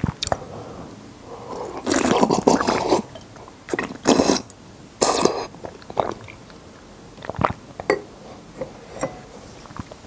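Close-miked mouth sounds of eating drinkable konjac jelly: a long wet slurp about two seconds in and two shorter ones near four and five seconds, with small mouth clicks between.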